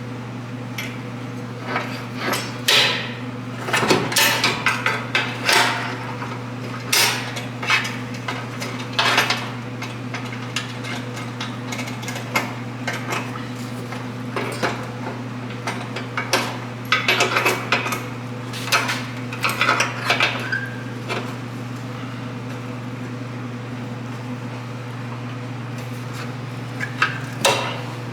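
Irregular metal clanks and clicks of locking pliers (vise grips) being handled and clamped onto a Volvo 240's rear bumper and its shock absorber bracket, over a steady low hum.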